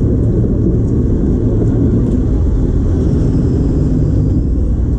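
Cruise ship lifeboat's inboard diesel engine running steadily under power, heard from inside the boat's cabin as a loud, even low rumble.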